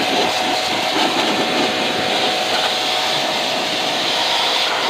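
Pressure washer running steadily, its jet of water spraying onto the evaporator coil fins and into the metal chassis of a window-type air conditioner being cleaned, a constant motor hum under the spray.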